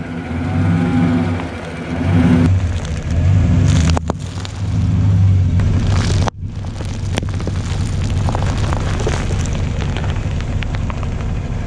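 Chevrolet Silverado pickup's engine running as the truck creeps forward on gravel, its tire rolling over and flattening plastic-wrapped snack cakes, with a few sharp crackles from gravel and wrappers.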